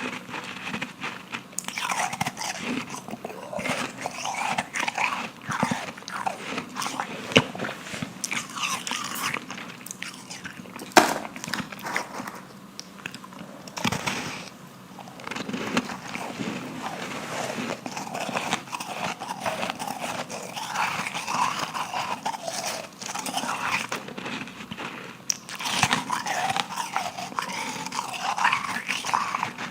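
Close-up biting and chewing of refrozen powdery ice: a dense, continuous crunching crackle, with a few sharper cracks of bites breaking through, the loudest about eleven seconds in.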